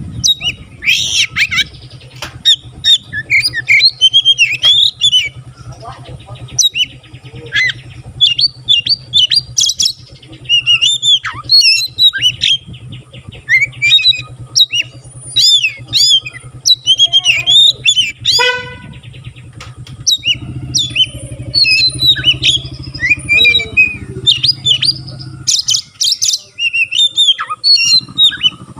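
Oriental magpie-robin (kacer) in full song: a loud, almost continuous stream of quick, varied whistles, chirps and harsher notes, with a low steady hum beneath.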